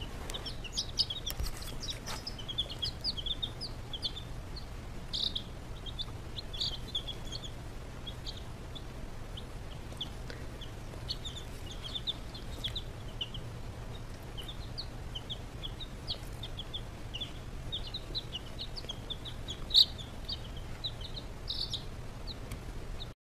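A group of baby chicks peeping constantly, many short high chirps overlapping, over a steady low hum.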